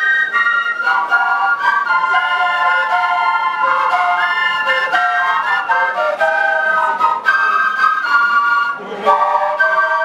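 A large ensemble of end-blown flutes playing a melody in several parts at once, with quick note changes. The playing breaks off briefly and comes back in about nine seconds in.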